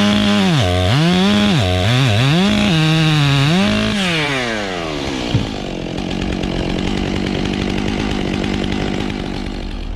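Chainsaw running hard, its engine pitch dipping and climbing again in quick repeated surges, then the throttle is released about four seconds in and the note falls away. A steadier, lower engine drone carries on after it.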